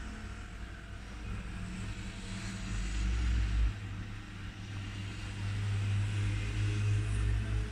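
Steady low rumble with a faint hiss, growing louder over the last few seconds.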